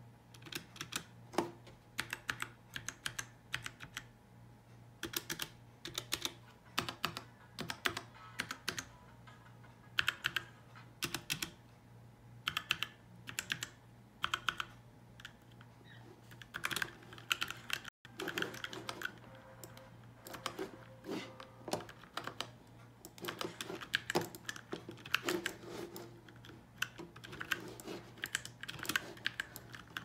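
Typing on a Dierya 60% mechanical keyboard with Outemu Brown switches: rapid keystroke clacks in irregular runs with brief pauses between them. A faint steady low hum lies underneath.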